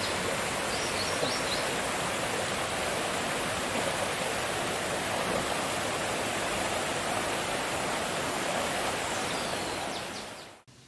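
Steady rushing of a river running past the camp, fading out near the end.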